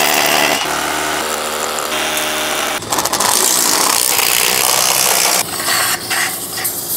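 Cordless drill boring a hole into a concrete slab for a Tapcon concrete anchor: a loud grinding chatter over the motor's steady whine. It dips briefly about three seconds in and goes on.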